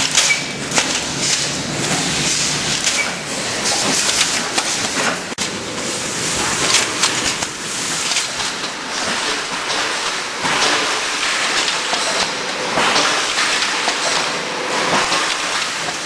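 Automatic tray and tub filling and packaging line running: a steady hiss with a dense clatter of clicks and knocks from its sealing, lidding and conveyor mechanisms. The sound briefly cuts out about five seconds in.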